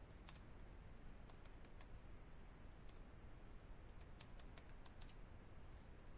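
Faint, irregular keystrokes on a computer keyboard as a line of code is typed, over a steady low hiss.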